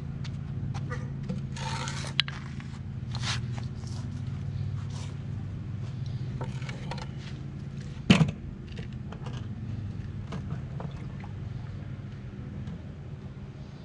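A wooden board handled on a concrete seawall and over a plastic piling sleeve: scraping and light knocks, with one sharp loud knock about eight seconds in. A steady low hum runs underneath.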